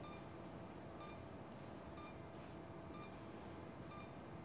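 Faint short electronic beeps from medical equipment, one about every second at a steady pitch, over a low steady hum.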